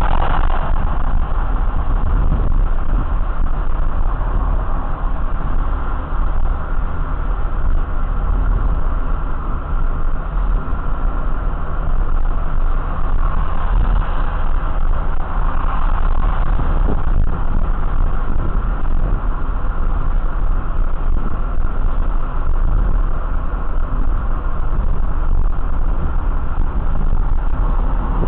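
Steady, loud, low rumbling noise of a running vehicle, with no sharp events, recorded through a small camera's built-in microphone with dull, muffled highs.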